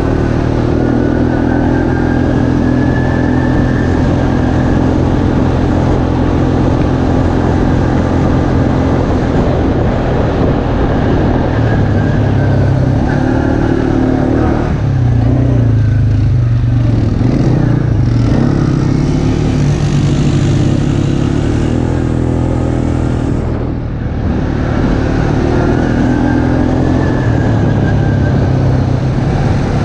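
An ATV's engine running steadily under way on a dirt trail. Its pitch shifts with the throttle about halfway through, and it eases off briefly about three-quarters of the way in.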